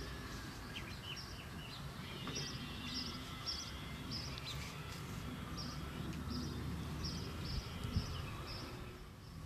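Outdoor ambience: a small bird repeats short, high chirps about twice a second over a steady low rumble. There is a brief thump near the end.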